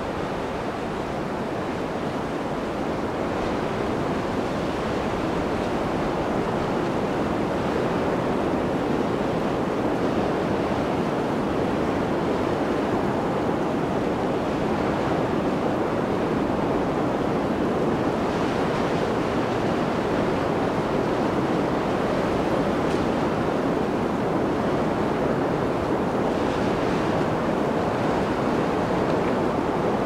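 Blizzard wind blowing steadily, a dense even noise with slight gusts that brighten it about two-thirds of the way through and again near the end.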